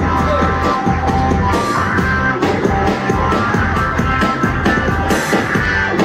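Live band music played loud: an organ with the Drum Buddy, a light-triggered drum machine, keeping a steady, even beat.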